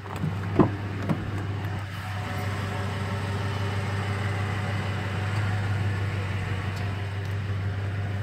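Ford F-150 pickup idling with a steady low hum, its climate fan blowing. About half a second in a sharp click, then a softer one a moment later, as the doors unlock and the rear door latch opens.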